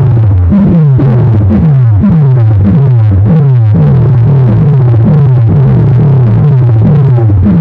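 Electronic competition music played very loud through a large outdoor sound system. A deep synth bass note slides down in pitch, repeating about twice a second.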